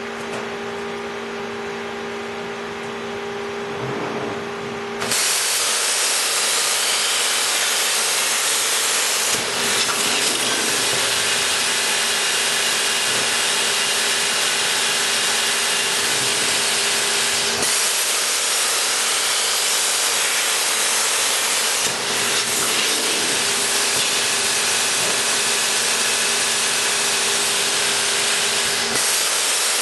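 Plasma cutter torch hissing loudly and steadily, starting suddenly about five seconds in over a steady electrical hum, as the torch is set to cut thin stainless steel sheet into strips.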